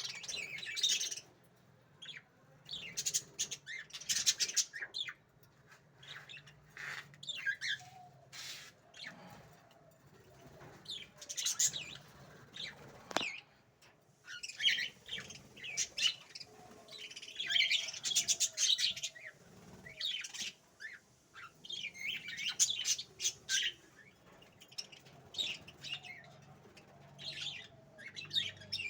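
Small birds chirping and twittering in quick clusters of high notes, one cluster every few seconds with short pauses between.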